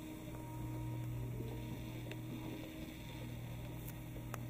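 Steady low electrical hum, with a few faint clicks.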